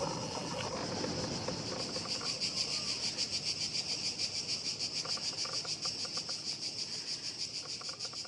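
A chorus of insects buzzing in a high, even, fast pulse that keeps on without a break.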